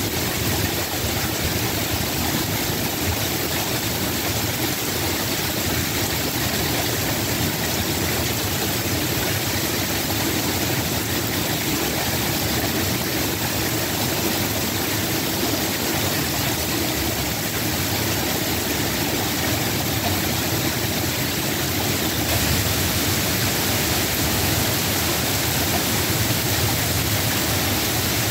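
Steady rain falling, an even, unbroken hiss with no thunder claps in it.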